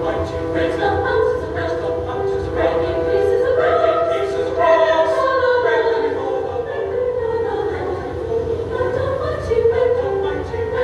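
Mixed choir of men's and women's voices singing sustained notes in harmony.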